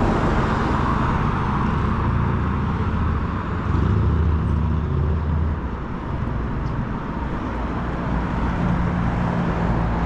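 Street traffic: motor vehicles running nearby, with a steady low engine hum under the road noise.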